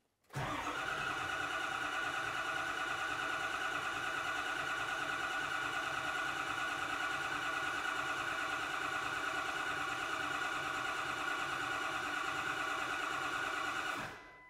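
A 2003 Ford 6.0-liter Power Stroke V8 diesel cranking on its starter for about fourteen seconds during a scan-tool relative compression test, with an even, steady cranking rhythm. The test result is equal compression on every cylinder, the sign of a healthy engine. It starts suddenly and cuts off suddenly near the end.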